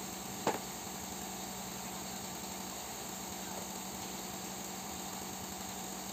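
Steady mechanical hum at an even level, with one sharp click about half a second in.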